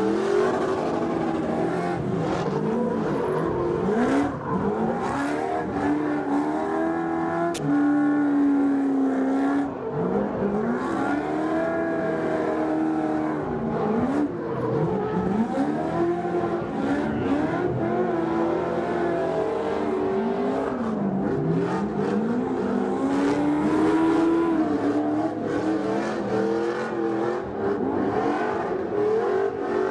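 Pro 2 off-road race truck's V8 revving up and down over and over while it drifts, its pitch rising and falling every second or two.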